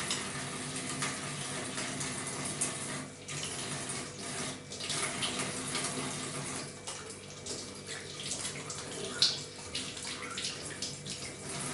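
Tap water running into a stainless-steel kitchen sink while hands are soaped and rubbed under the stream, with uneven splashing.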